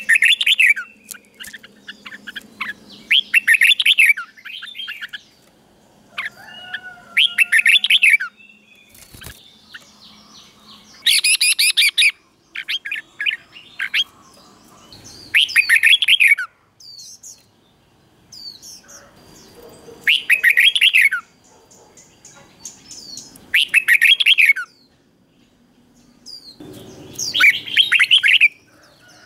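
Red-whiskered bulbul singing: short, loud, warbled song phrases of about a second each, repeated roughly every four seconds, with a few brief softer notes in between.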